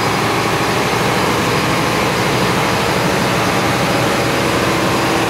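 Cummins QSM11 six-cylinder turbocharged marine diesel generator set running loud and steady at its governed 1500 rpm, the speed for 50 Hz output.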